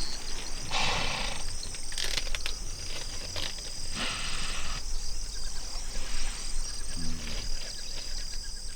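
Hippos calling with low grunts and rumbles, with a short pitched grunt about seven seconds in, over steady high insect chirring.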